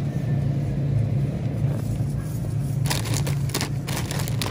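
Plastic bag of salad crinkling as it is grabbed off a supermarket shelf, in a cluster of sharp rustles about three seconds in, over a steady low hum.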